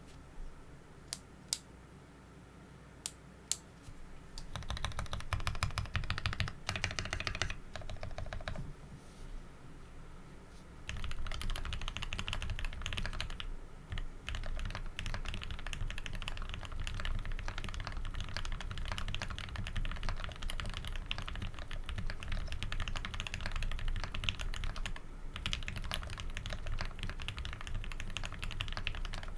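Typing on a Tx60 v2 custom mechanical keyboard with a brass plate, PBT keycaps and lubed Tealios v2 linear switches in Cherry top housings. A few single keystrokes come first, then fast continuous typing with a short lull about ten seconds in.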